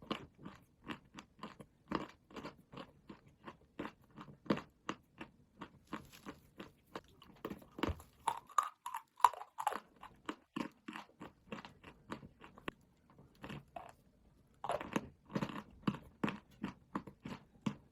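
Dry chalk being chewed close to the microphone: a steady run of crisp crunches, about three a second, that thins out briefly before louder crunching picks up again near the end.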